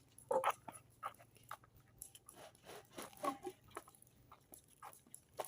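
A dog making scattered short, quiet sounds, with a few brief pitched vocal noises about half a second in and again around three seconds.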